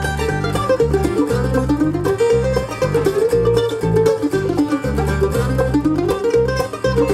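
Bluegrass band playing live: five-string banjo and mandolin picking fast over acoustic guitar strumming and a bass line that changes note about every half second.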